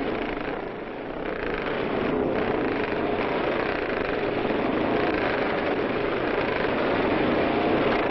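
Engines of small open race cars running as they lap a track, a continuous engine drone with no let-up.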